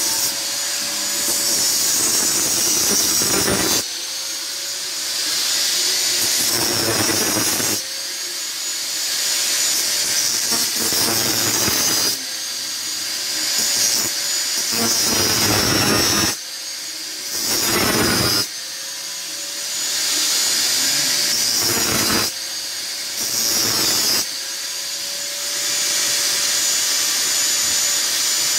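Handheld angle grinder running and grinding a metal part, its level and pitch dropping briefly about every two to four seconds as the disc is worked against the metal.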